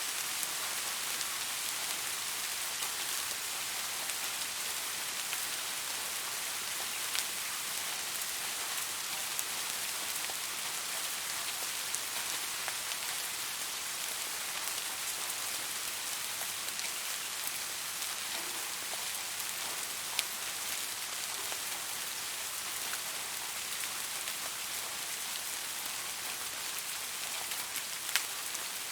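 Steady rain falling on a surface: a dense, even hiss of drops, with a few sharper single drop ticks standing out now and then.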